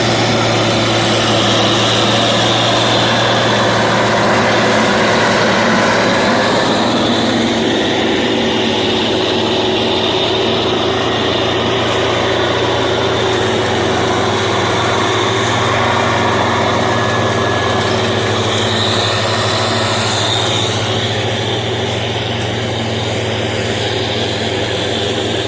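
Diesel engine of heavy farm machinery running steadily under working load.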